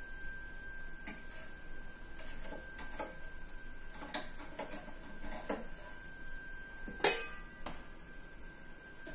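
Light, scattered clicks and taps of metal kitchen utensils against a pan, with one sharp metallic clank about seven seconds in.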